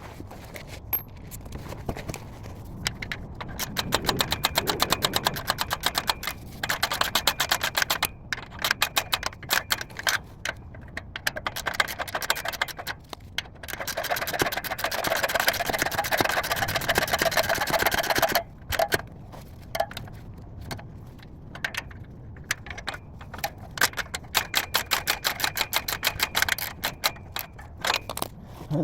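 Socket ratchet clicking in fast, long runs as the 12 mm bolts joining the exhaust downpipe and catalytic converter are tightened, with short pauses between runs.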